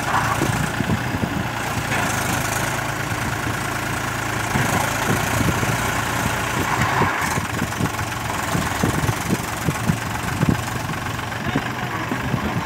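Tractor's diesel engine running steadily with a rapid clatter, straining against a loaded stone trolley stuck in mud.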